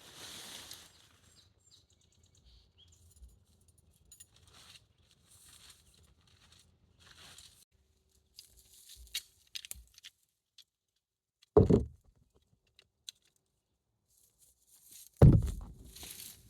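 Scattered light rustling and small clicks, like gear or clothing being handled, with two loud, short thumps about twelve and fifteen seconds in.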